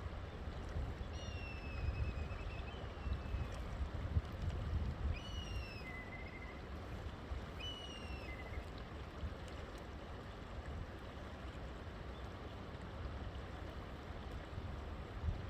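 A river flowing steadily, with a bird singing three short phrases of falling whistles: about a second in, around five seconds in, and around eight seconds in.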